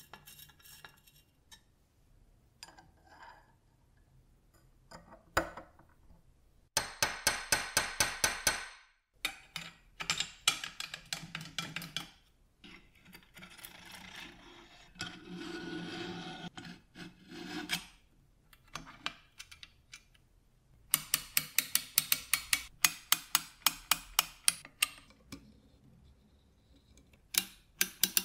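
Small metal parts of an antique cheese wire slicer's gear housing being assembled by hand: a screwdriver turning small screws, two runs of rapid, even clicking, and a stretch of scraping and rubbing of metal on metal.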